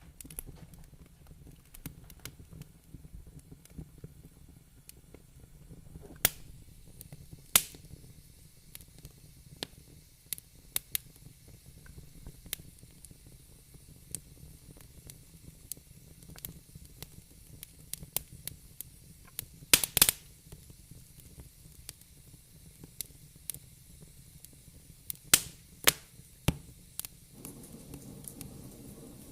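Fire in a fireplace crackling: a constant scatter of small ticks under a faint hiss, with louder sharp pops now and then, the loudest cluster about two-thirds of the way through.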